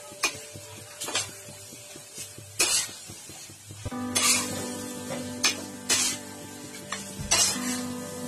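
A spoon scraping and knocking against a wok while a thick gravy with paneer cubes is stirred, a stroke every second or two, over a light sizzle. Background music with held notes comes in about four seconds in.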